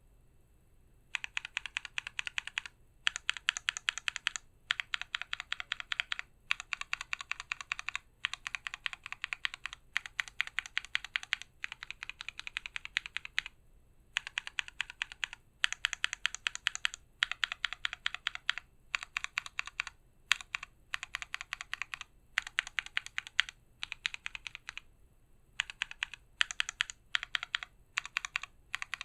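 Typing on a mechanical keyboard with SA profile keycaps in a stacked-acrylic case, with an FR4 plate and no dampening foam. Quick runs of keystrokes, each lasting about a second, are separated by short pauses and start about a second in.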